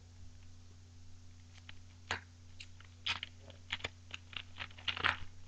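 Upper Deck hockey cards and pack wrapper being handled and thumbed through: a run of short, irregular crinkles and clicks in the second half, over a steady low electrical hum.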